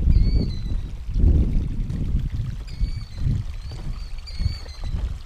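Killdeer calling: several short, high, slightly falling notes, one near the start and three more in the second half, over a low gusting rush of moving air and flowing water.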